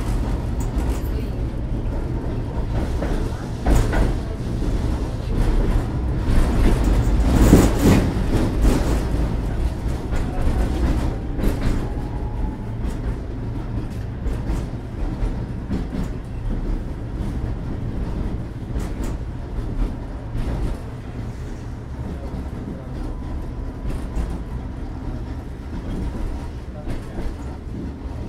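Tatra T3A tram running along the track, heard from inside the car: a steady low rumble of wheels and running gear, with scattered knocks and clatter that swell louder around seven to eight seconds in.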